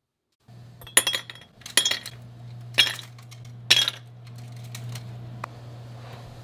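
Ice cubes dropping one at a time into a glass mason jar: four sharp clinks about a second apart over a steady low hum. After them come a couple of faint clicks.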